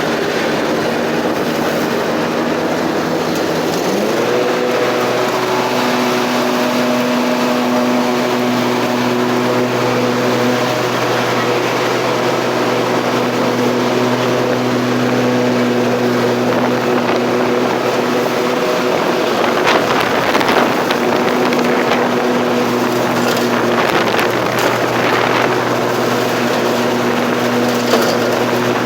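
Bad Boy MZ Magnum zero-turn mower running with its deck engaged while mowing. The engine speeds up about four seconds in, then holds a steady pitch, with a few short crackles later on.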